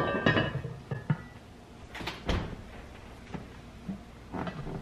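Cast iron Dutch oven lid set down on the pot with a ringing metal clank. Then a few separate knocks and clunks as the heavy pot is handled into the oven.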